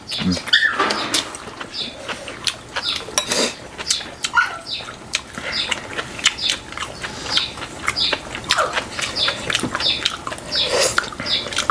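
Eating sounds: chewing and slurping of food, with many light clicks of chopsticks and spoons against bowls and dishes.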